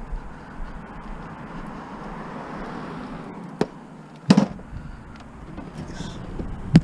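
Scrap being handled at a curbside pile: a few sharp knocks, the loudest about four seconds in and another near the end, over a steady rush of background noise.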